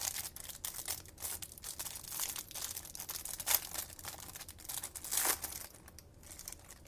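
Plastic wrapper of a trading-card pack being torn open and crinkled, a dense crackling with a few louder rips that eases off about six seconds in.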